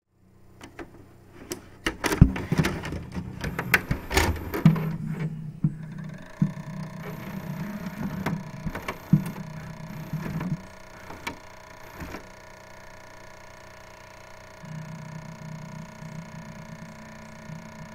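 A VCR loading and playing a VHS cassette. The mechanism clunks and clicks over a motor whir for the first several seconds, then settles into a steady playback hum with a faint high tone.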